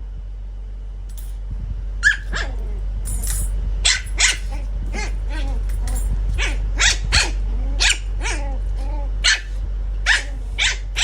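Pomeranian puppy barking: a string of short, sharp, high-pitched yaps, roughly one or two a second, starting about two seconds in.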